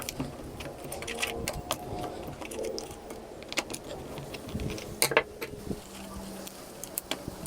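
Irregular light clicks and taps of an opened plastic computer keyboard and its cord being handled.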